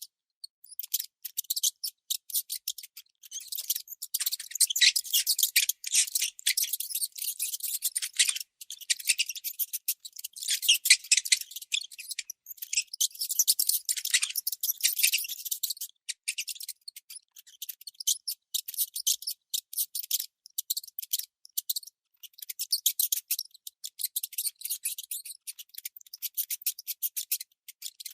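Baby mouse squeaking: rapid runs of high-pitched chirps in bursts, broken by short gaps and loudest through the middle stretch.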